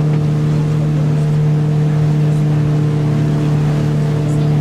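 A boat's motor running steadily at an even pitch, a loud constant drone with no change in speed.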